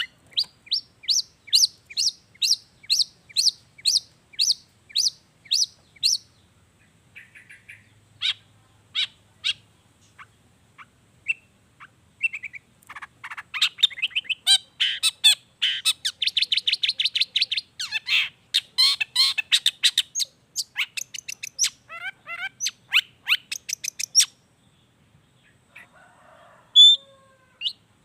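Long-tailed shrike (cendet) singing: a series of sharp repeated notes, about two a second, then scattered notes, then a long run of fast varied chattering, with a short pause near the end.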